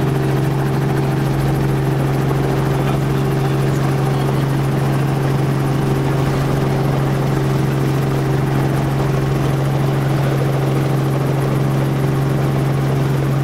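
Light helicopter's engine and rotor running steadily, heard from inside the cockpit as a constant deep hum over a wash of noise, during a low approach to land.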